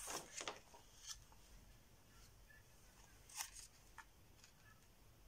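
Near silence with a few faint, brief rustles of a hardcover picture book's paper pages being handled and turned, the clearest about three and a half seconds in.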